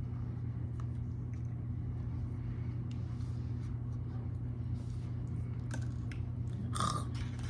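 A steady low hum, with faint small taps and clicks from handling things at a table, and a brief rustle about seven seconds in.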